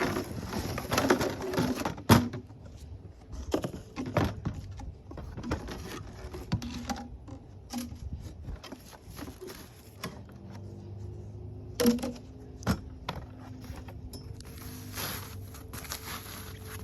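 Cardboard box and packed parts being handled and pulled out: rustling packaging with scattered knocks and bumps, heaviest in the first couple of seconds and again near the end.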